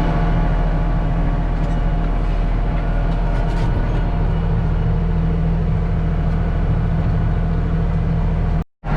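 Case IH tractor engine running steadily under load while pulling a planter, a constant low hum heard from inside the cab.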